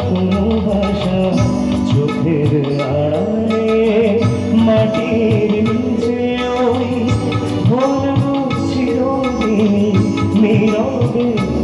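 Man singing a melody into a microphone with a live band of keyboard, electric guitar and bass guitar, amplified through a PA system.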